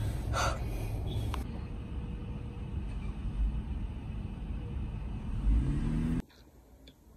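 Car cabin noise while driving: a steady low rumble of engine and road, with the engine pitch rising briefly just before it cuts off suddenly about six seconds in, leaving quiet room tone.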